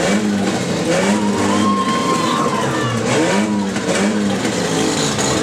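Demolition derby car engines revving up and down over and over, several running at once, with a thin whine about a second in.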